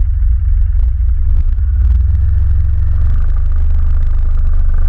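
ATV engine running steadily under a heavy low rumble, with scattered light knocks and rattles.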